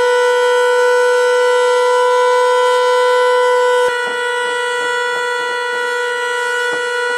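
An electric alarm horn sounding one loud, steady, unbroken note: an alert sending crews to their stations. About four seconds in it drops slightly in level, and faint knocks sound over it.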